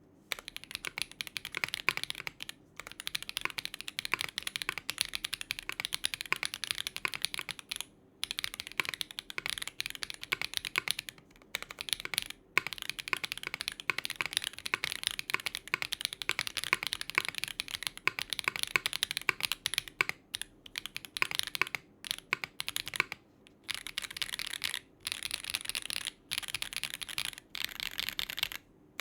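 Fast typing on a KBDFans Tiger80 Lite mechanical keyboard with stock Duhuk QK01 switches on a polycarbonate plate, under GMK Norse keycaps. The keystrokes run in quick continuous streams, broken by short pauses every few seconds.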